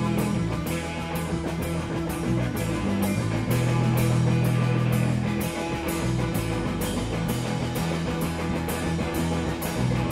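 Rock band playing live: electric guitar and drum kit over sustained low notes, with a steady beat.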